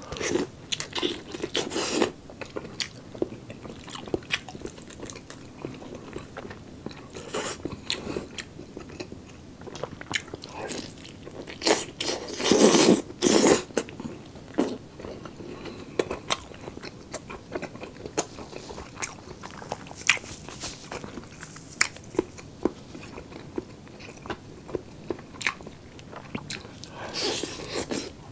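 A person eating roast chicken by hand: biting into the meat and skin and chewing, a run of short, irregular mouth sounds, with a louder stretch of biting and chewing about halfway through and again near the end.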